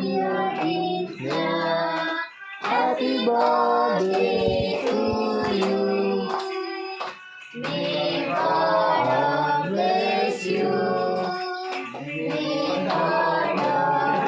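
Singing: women's and children's voices carrying a melody, with long held notes and short breaks between phrases.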